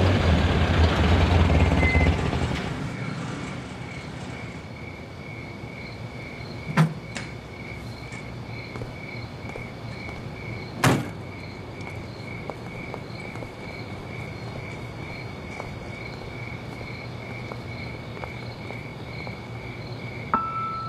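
A jeep's engine runs as it pulls up, fading out within the first few seconds. Crickets chirp steadily after that, with two car-door knocks, about seven and eleven seconds in, the second being the door shutting.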